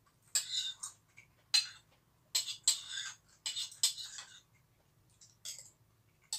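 Metal spoon clinking and scraping against a ceramic bowl of soupy vegetables as someone eats, with about eight sharp, irregular clinks, each followed by a brief scrape or slurp.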